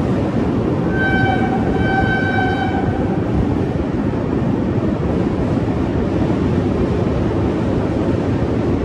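Passenger train running over a steel truss bridge, heard from an open coach doorway: a steady, loud rumble of wheels on the rails mixed with rushing wind. About a second in, a train horn sounds twice, a short blast and then a longer one.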